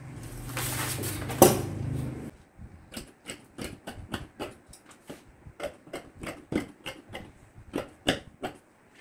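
Paper rustling with one sharp knock about a second and a half in, then large fabric shears cutting through white Klopman uniform fabric in a steady run of crisp snips, about three a second.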